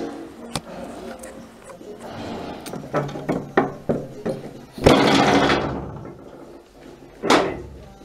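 Camera handling noise as it is set in place: a run of knocks and taps, a louder thump followed by a brief noisy rush about five seconds in, and another short bump near the end.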